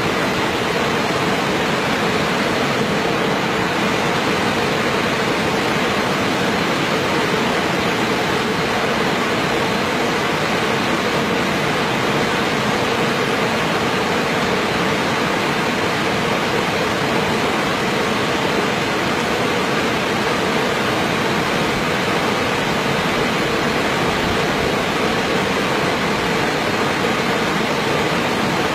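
Steady rushing of flowing water over rocks, an even noise that does not change.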